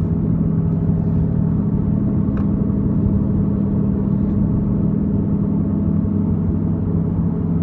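Badly worn driver's-side front wheel bearing on a Chevy Cruze, a steady, really loud roar heard from inside the moving car over the road noise: the bearing is close to coming apart.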